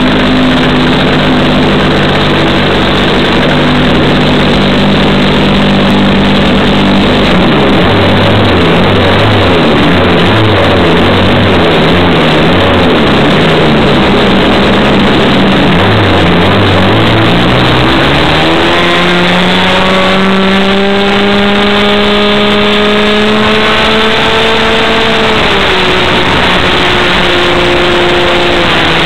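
Model plane's .90-size two-stroke glow engine heard loud from an onboard camera, mixed with heavy wind rush. Its pitch is low and uneven at first, rises sharply about two-thirds of the way in and holds high, then drops a little near the end.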